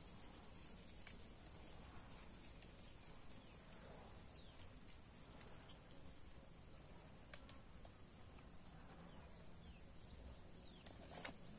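Faint rural ambience: a steady high insect drone, small birds chirping, and a quick high trill of ticks heard three times in the second half. A few sharp clicks, the loudest near the end.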